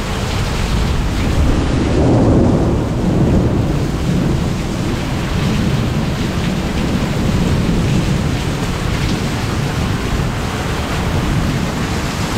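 Heavy wind-driven rain and strong gusting wind of a severe storm, with the wind buffeting the microphone. A louder swell comes about two seconds in.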